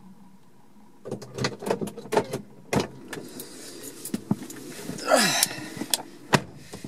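A person getting into a car's driver's seat: a run of clicks and knocks as the door opens and he climbs in, then a louder rustle as he settles into the leather seat. A single sharp knock near the end as the driver's door shuts.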